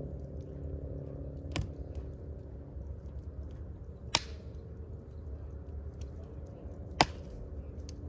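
Fire burning: a steady low rush with faint crackles and three sharp pops, the loudest near the end.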